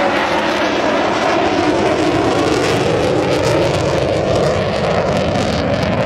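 Aircraft engines of a vintage F4U Corsair and an F/A-18F Super Hornet flying together, a steady, loud drone of engine noise.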